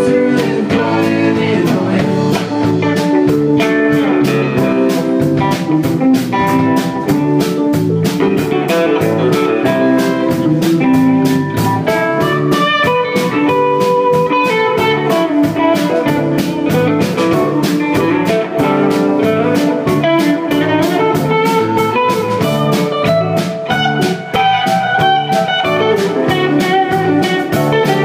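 Live rock band playing an instrumental passage: electric guitars, keyboard, bass and a drum kit keeping a steady beat, with a lead guitar line running over the top.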